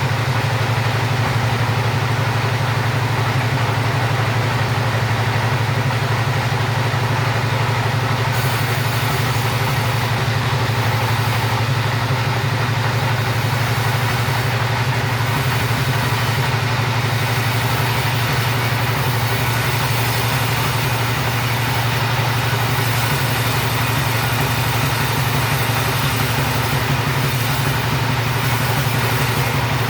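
Two-stroke chainsaw engine running steadily without a break.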